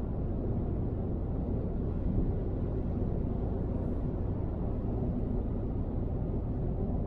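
Car cruising at motorway speed, heard from inside the cabin: a steady low rumble of road and tyre noise.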